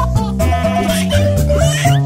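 Cheerful children's intro jingle: a bouncy melody of short notes over a bass line, with a short wavering high sound near the end.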